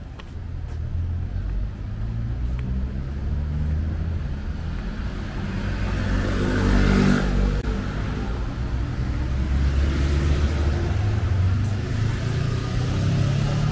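City road traffic: motor vehicle engines running, with one vehicle passing close and loudest about seven seconds in, and another engine building up near the end.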